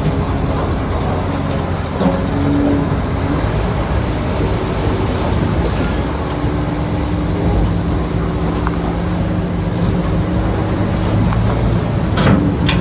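Heavy diesel earthmoving machinery running steadily, with a short sharp clank about two seconds in and another near the end.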